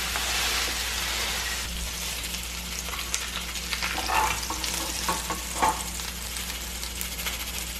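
Pork chops sizzling as they fry in a non-stick pan with no oil added, only their own rendered fat. The sizzle is strongest in the first couple of seconds, and a few light clicks and taps from the pan come about halfway through.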